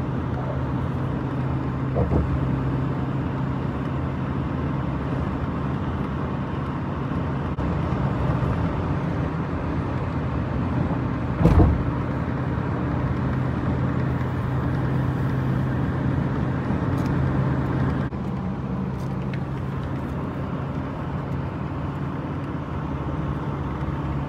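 Steady road and engine noise of a car driving on a highway, heard from inside the car, with a constant low hum. One brief knock about halfway through and a fainter one near the start.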